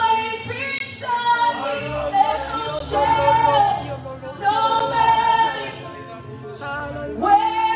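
Women's voices singing a worship song in sustained phrases over a soft band accompaniment of electric guitar and keyboard, with short breaths between lines.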